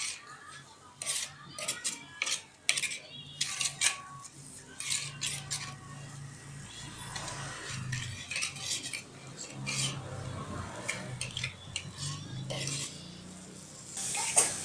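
Metal spatula scraping and clinking against a steel wok as a chili-and-garlic seasoning paste is stir-fried until fragrant, in quick irregular strokes. A louder sizzling hiss starts near the end.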